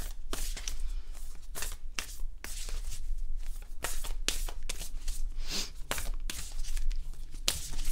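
Oracle card deck being shuffled by hand: a quick, irregular run of papery swishes and flicks as the cards slide against each other.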